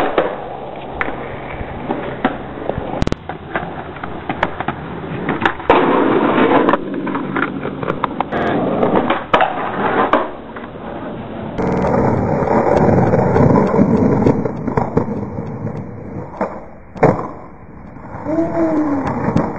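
Skateboard wheels rolling on concrete, broken by repeated sharp clacks of the board hitting the ground as tricks are tried.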